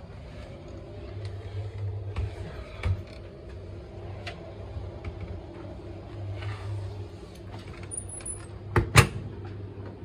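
Zanussi Jetsystem washing machine running its drum in service mode: a steady motor hum with small knocks and rattles. Two loud sharp clicks come near the end.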